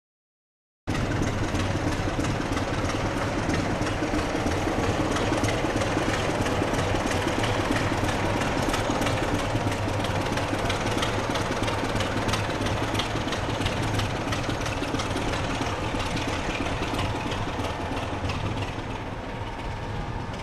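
Diesel locomotive engine idling, a steady low hum with a rattle, cutting in suddenly about a second in.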